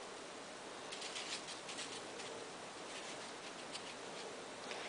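Fine embossing powder being poured, a faint soft pattering hiss with tiny ticks that thickens from about a second in.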